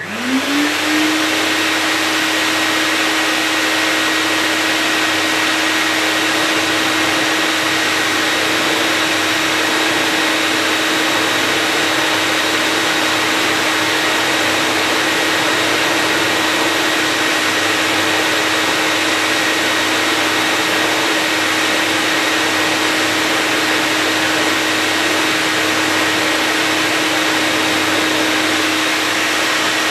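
An electric motor switching on and spinning up within about a second, then running steadily with a loud rushing noise and a constant hum.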